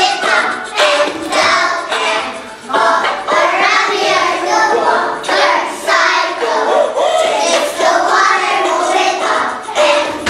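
A group of young children singing a song together, loud and lively, to music.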